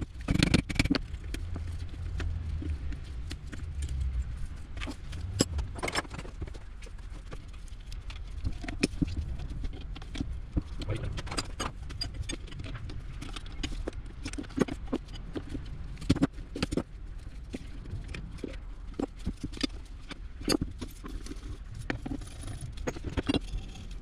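Steel hand tools and a bearing puller clinking, tapping and scraping against a machine spindle shaft and a steel bench plate as the puller is bolted up, in irregular clicks and knocks over a low hum.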